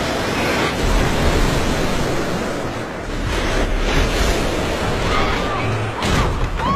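Film action-scene sound effects: a loud rush like surging, splashing water, with deep rumbling underneath and a few short cries near the end.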